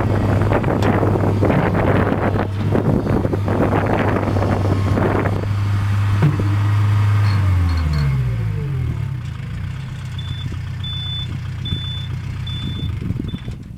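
New Holland LS160 skid loader's diesel engine running steadily, then winding down about eight seconds in, falling in pitch. After that comes a series of about five short, high-pitched electronic beeps.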